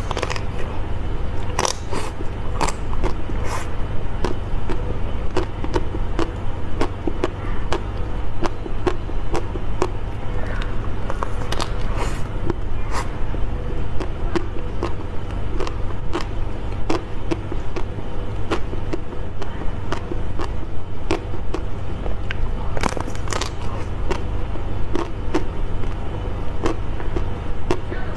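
Close-miked eating: a person biting and chewing food, with many sharp crunches and mouth clicks throughout, over a steady low hum.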